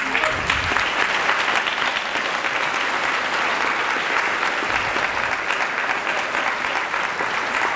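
Audience applauding steadily, a dense clatter of many hands clapping.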